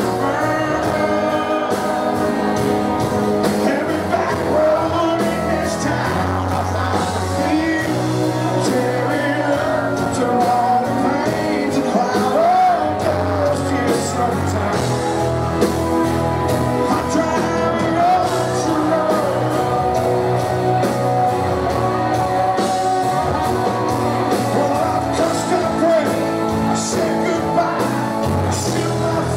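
Live country band playing with a male lead vocal singing over acoustic and electric guitars and keyboards.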